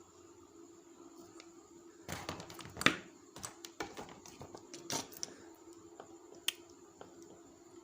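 Soldering work on an LED bulb's circuit board: a dense patch of small clicks and scrapes about two to three seconds in, more clicks a second or two later, and a single click near the end, over a faint steady hum. The dead LED is being shorted out with the soldering iron.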